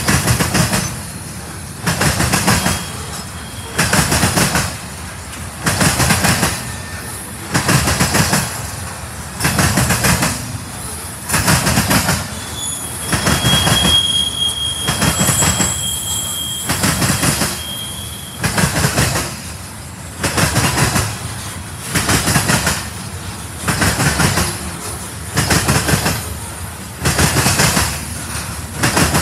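Loaded freight train of covered hopper cars rolling past, the wheels of each passing pair of trucks clattering over the rail joints in a regular clack about every two seconds. A thin, steady, high wheel squeal rings out in the middle for about five seconds.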